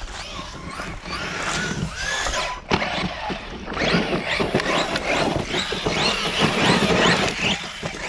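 Maverick Quantum+ Flux RC monster truck running: its brushless motor whines up and down in repeated rising and falling sweeps as the throttle is worked, with a rough rushing noise from the tyres on the ground, heavier from about halfway in.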